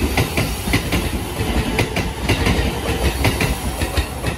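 Shin-Keisei Line electric train running past and away, its wheels clacking over rail joints in a quick, uneven run of clicks above a steady low rumble.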